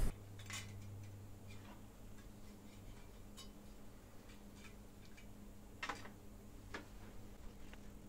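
Faint, scattered clicks and light metallic taps, half a dozen over several seconds with the loudest about six seconds in, from an aluminium-finned Hyper 212 tower CPU cooler and a screwdriver being handled as the cooler is lifted off the CPU. A low steady hum runs underneath.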